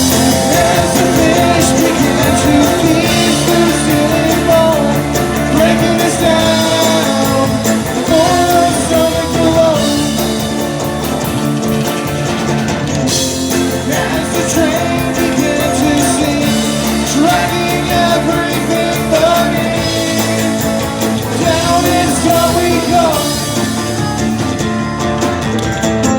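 Live rock band playing with a lead vocal over guitar and drums, loud and steady throughout.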